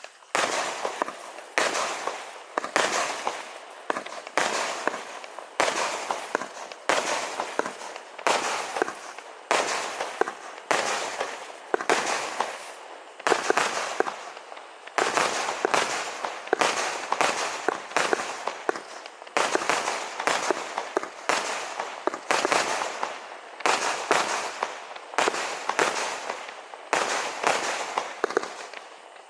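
Vulcan Thrillseeker firework cake firing shot after shot, roughly one a second, each a sharp bang that trails off before the next.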